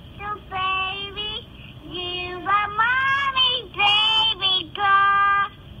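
A toddler, about two or three years old, singing a lullaby in a high voice, short held phrases repeated with brief breaks between them. It sounds thin and muffled, played back through computer speakers and re-recorded.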